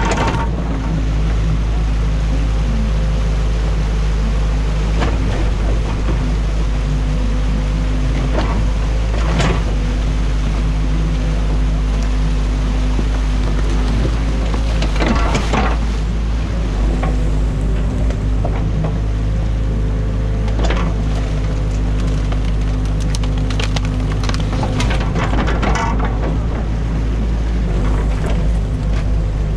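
Excavator's diesel engine running steadily at close range, heard from the cab, with sharp cracks and snaps of sticks several times as the bucket breaks apart a beaver dam.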